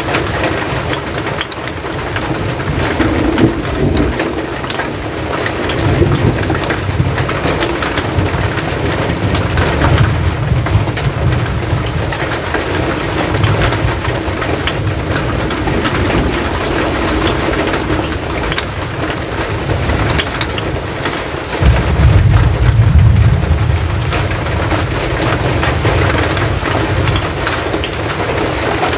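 Steady rain falling, an even hiss of drops throughout. A low rumble swells about three quarters of the way through and is the loudest part.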